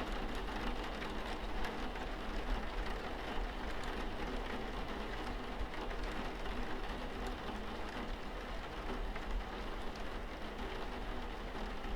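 Steady rainfall: an even, continuous hiss of rain with faint scattered drop ticks.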